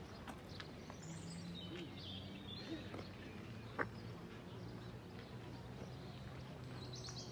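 Faint outdoor ambience over a low steady hum: a few high bird chirps about a second in and again near the end, scattered small clicks, and one sharp click about four seconds in.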